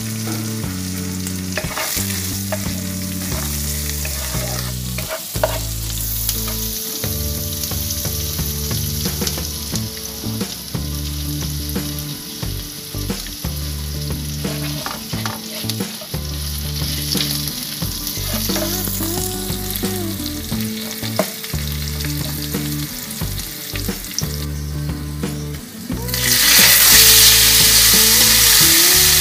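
Mustard oil sizzling in a kadai with a tempering of cumin seeds, green chillies, hing and bay leaves. Near the end a much louder sizzle takes over as taro stems cook in the hot oil.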